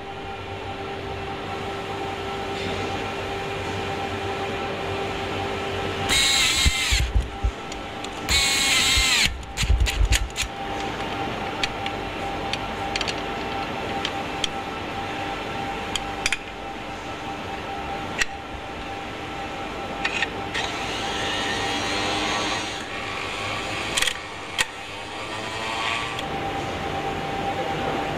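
Power tool running in two short bursts, about six seconds in and again about two seconds later, over a steady factory hum. Sharp metallic clicks and knocks from parts being handled follow at intervals.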